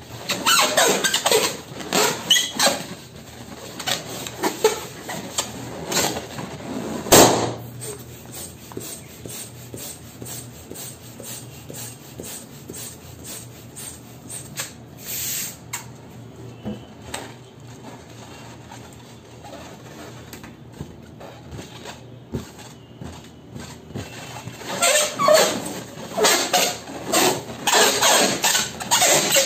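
Hands rubbing and squeezing an inflated latex balloon, making rubbery squeaks, then a single sharp balloon pop about seven seconds in. Quieter repeated strokes of a hand balloon pump follow, and the squeaky rubbing starts again near the end.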